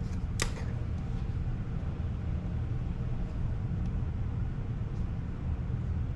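Steady low rumble, with a single sharp click about half a second in from handling the motor-oil bottle over the filler funnel.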